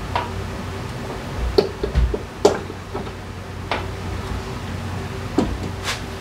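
Scattered clicks and light knocks of hand tools and drivetrain parts being handled, irregular and a second or so apart, over a steady low hum.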